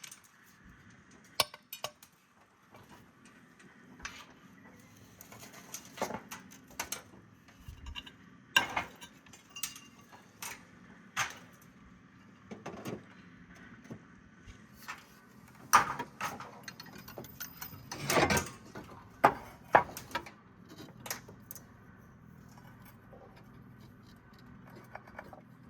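Roofing work: clay roof tiles and hand tools clinking and knocking irregularly, with a few louder knocks, the loudest about 16 and 18 seconds in.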